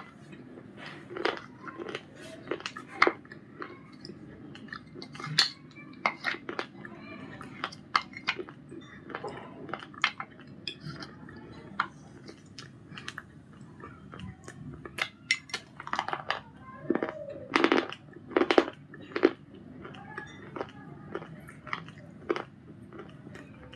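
Close-up crunchy bites and chewing of 'Punjab biscuit' with white khadi (chalk) paste: irregular sharp crackles, with a louder run of crunches a little past the middle.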